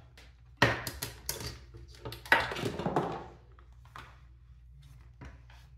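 Knocks and clatter of hard objects being handled, picked up and set down. There is a cluster of clicks about a second in and a longer scraping rustle near the middle, over a faint steady low hum.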